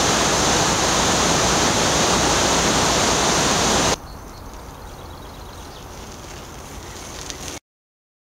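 Water rushing over a weir: a loud, steady rush that cuts off abruptly about four seconds in. A much fainter outdoor background hiss follows, then the sound drops out to silence near the end.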